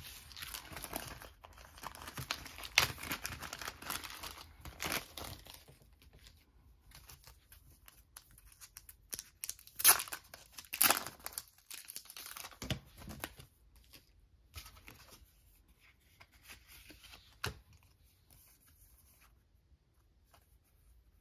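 Crinkly plastic packaging being handled, then a sealed photo-card pack torn open with two loud rips about ten seconds in, followed by soft rustling as the cards are slid out.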